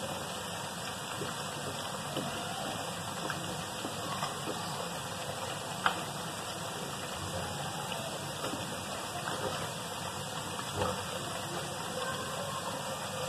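Potato pakoras deep-frying in oil in a karahi: a steady sizzle with faint scattered crackles and one sharp crack near the middle.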